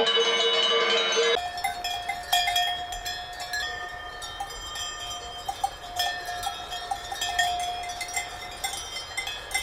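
Handheld cowbells being shaken, clanking in irregular small strikes over a lingering ringing tone. About the first second and a half holds a different steady ringing of a few held tones.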